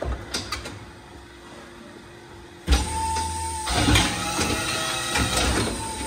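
Hoof-trimming chute machinery: a few metal knocks, then a sudden loud start about two and a half seconds in, with a steady whine for about a second and rattling, clanking metal after it.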